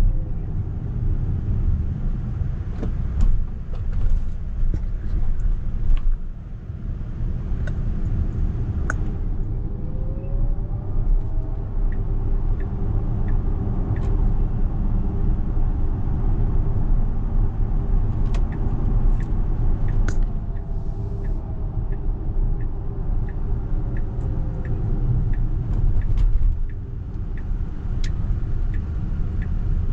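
Tesla Model X 100D driving on city roads, heard from inside the cabin: a steady low tyre and road rumble, with a faint whine that glides up and down in pitch as the car speeds up and slows, and a few light clicks.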